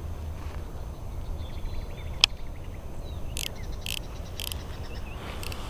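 Outdoor ambience with a steady low rumble of wind on the microphone, a single sharp click about two seconds in, and three short high-pitched chirps around the middle.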